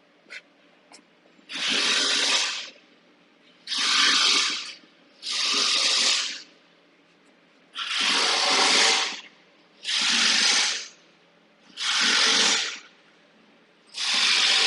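Seven bursts of rushing, hissing mechanical noise, each about a second long, starting and stopping sharply about every two seconds. Two faint clicks come just before the first burst.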